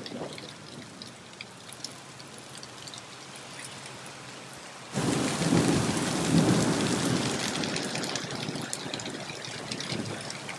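Steady rain with a patter of drops. About halfway through the rain abruptly gets louder, with a rolling rumble of thunder that slowly fades.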